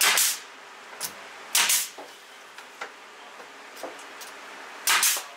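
Pneumatic nail gun firing nails into the wood of a cabinet face, three shots, each a sharp pop with a short burst of exhaust air. The shots come at the start, about a second and a half in, and near the end, with faint clicks between them.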